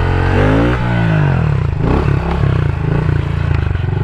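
Honda CRF110 pit bike's small single-cylinder engine revving up and back down in the first second or so, then running on at a steady lower throttle with a choppy putter.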